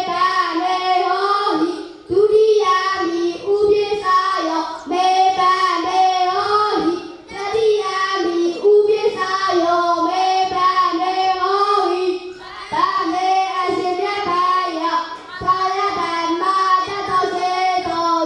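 A young Buddhist novice monk chanting a Buddhist recitation into a hand-held microphone: a child's voice in a sung, melodic chant, with short pauses for breath between phrases.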